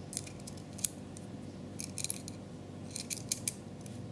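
Small metal parts of a 1:3.5 scale miniature Mauser 98k rifle clicking and clinking as its floorplate and spring are worked loose by hand. The clicks are short and sharp, one standing out just under a second in, then two quick clusters around two and three seconds in.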